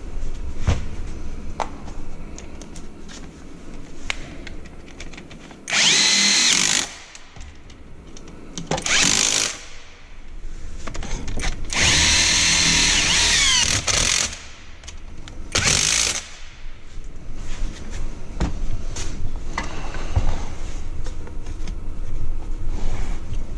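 A power drill run in four short bursts, the longest about two seconds, its whine sweeping in pitch, with clicks and knocks of handling between the runs.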